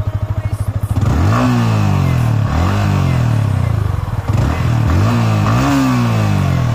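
Yamaha R15 V3's 155 cc single-cylinder engine on its stock exhaust, idling and then revved in about four throttle blips from about a second in, each rising and falling in pitch.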